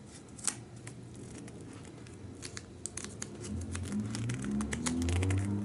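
Plastic pocket sheets of a trading-card binder crinkling and clicking as the page is handled and turned, with a low rubbing rumble from about halfway through.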